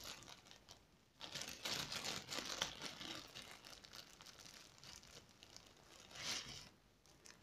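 Clear plastic packaging crinkling and rustling as it is handled and pulled at, in uneven bursts, the loudest starting about a second in and another near the end.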